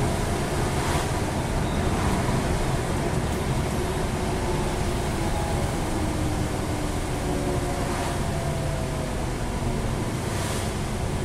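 Scania N230UD double-decker bus heard from inside the passenger saloon while under way: a steady drone from its diesel engine and driveline under road noise. A few tones in the drone sink slowly in pitch over several seconds.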